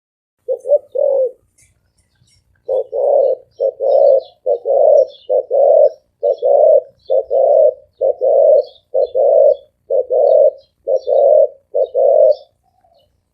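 Spotted dove cooing in a deep, resonant voice. After a brief opening phrase it gives a rapid, steady run of low paired coos, about one pair a second, with faint high chirps of small birds behind.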